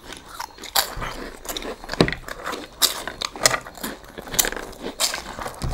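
Several people crunching and chewing a dry, crisp snack eaten straight from plates without hands: irregular sharp crunches and clicks, a few each second.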